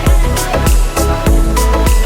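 Background music: an electronic track with a steady, punchy drum beat and sustained melodic tones.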